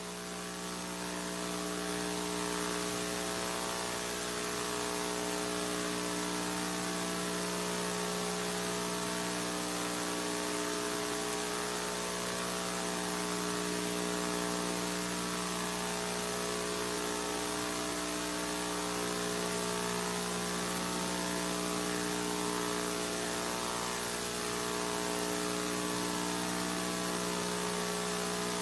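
Steady electrical mains hum with a constant hiss, made of several fixed tones that do not change.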